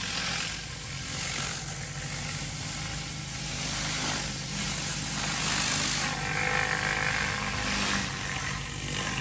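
Pressure washer running: a steady engine drone under the hiss of the water jet, which swells and fades every second or so.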